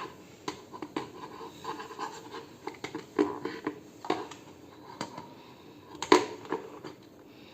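Handling noise of a plastic quartz wall clock being hung on the wall: irregular scraping and knocks against the wall, with a louder knock about three seconds in and another about six seconds in.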